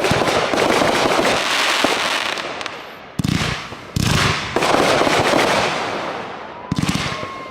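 Fireworks going off: a dense run of crackling and popping that fades over the first few seconds, then three more sudden bursts, each trailing off in crackle.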